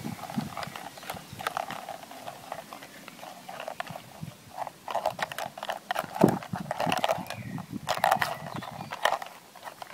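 A dog licking and chewing frozen liverwurst ice in a plastic bowl: irregular wet smacks and clicks, coming in quicker clusters about halfway through and near the end.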